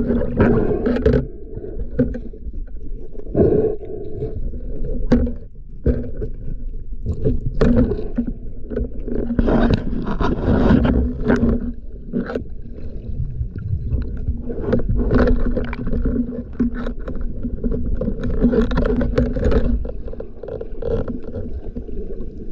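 Water moving past the microphone on a breath-hold spearfishing dive, heard underwater: a steady low rumble with bubbling and many scattered clicks and knocks.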